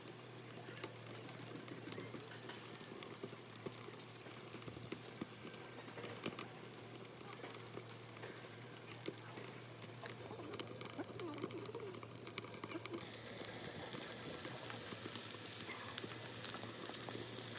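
Faint wood fire crackling inside a stove built from an ammo can: irregular sharp pops over a low steady hum. A bird calls now and then.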